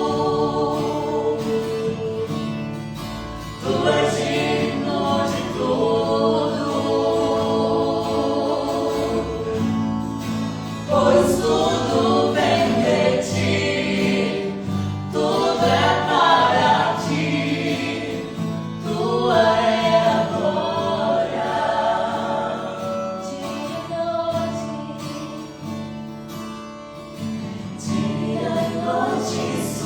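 Christian worship music: several voices singing long, held phrases together over a steady instrumental accompaniment.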